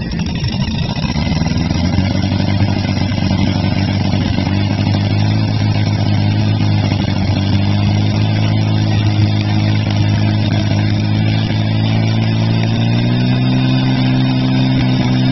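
Portable fire pump engine running hard at high revs while it pumps water through the suction and delivery hoses. Its pitch steps up near the end as the throttle is opened further.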